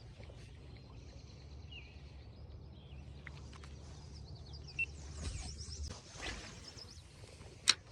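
Outdoor ambience: a steady low rumble with faint bird chirps, and one sharp click near the end.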